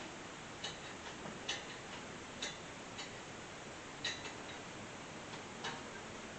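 Light clicks and ticks at irregular intervals, about one or two a second, from the small metal parts of a lawn mower's carburetor control linkage being handled and moved.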